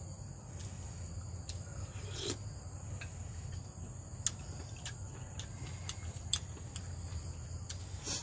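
Insects buzzing steadily in the background, with scattered small clicks and taps of eating: a plastic spoon against a bowl and fingers tearing cooked pork trotter.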